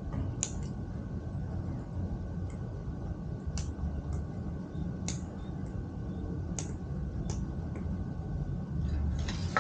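Irregular sharp clicks, about one a second, from working the folding three-burner camping gas stove and its hose fittings, over a steady low rumble.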